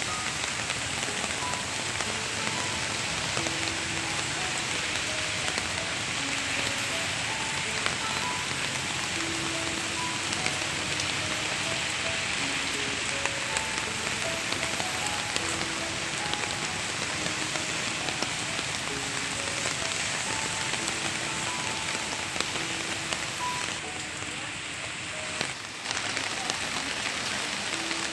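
Heavy rain falling steadily, a dense even hiss of water. It eases slightly for a couple of seconds near the end, then a brief knock.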